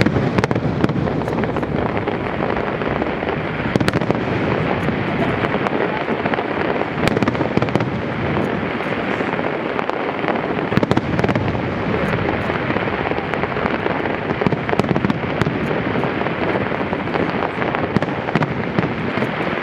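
Aerial fireworks display with many shells bursting in quick succession: a continuous rumble of booms with frequent sharp cracks and crackle on top.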